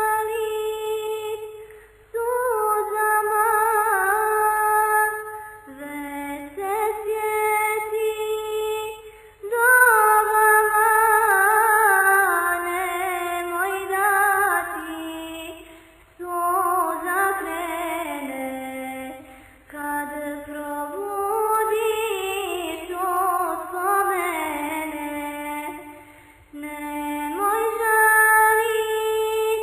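Solo high voice singing a slow melody in long, wavering phrases of a few seconds each, with short breaks between them and no other instrument standing out.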